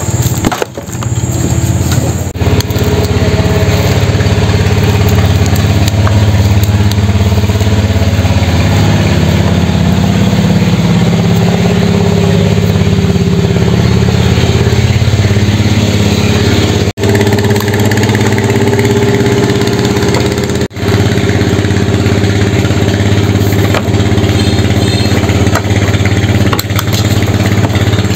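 A boat engine running steadily at a low, even pitch, with two brief dropouts about two-thirds of the way through.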